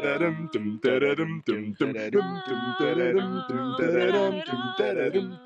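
A cappella vocal music: male and female voices singing together in harmony, over a steady beat of short sharp strokes.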